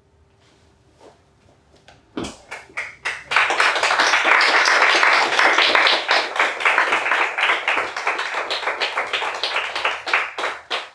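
Small audience applauding: a few scattered claps about two seconds in that swell into full applause, thinning out near the end.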